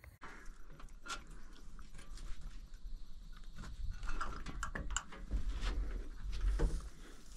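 Irregular clicks, knocks and scrapes of wooden parts being handled inside a wooden box hunting stand as its window flap is opened, with a low rumble of handling on the microphone.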